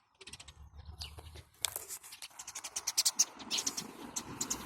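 Soft butter slime being stretched and squeezed by hand, giving a run of small crackling clicks and pops that come thickest in the middle.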